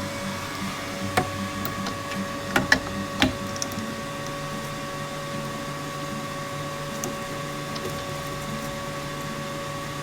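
Steady machine hum from the injector test bench, with a few sharp metallic clicks and knocks in the first few seconds as the injector is fitted onto it.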